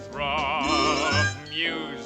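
Orchestral film score: a melody with a wide vibrato over held lower chords, the instrumental lead-in to a song.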